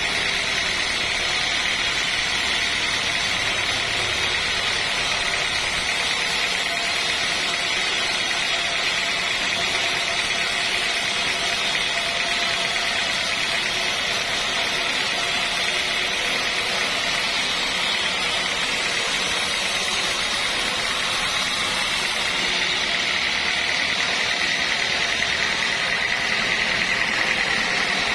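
Sawmill machinery running steadily, a continuous engine-like drone with a steady high whine over it.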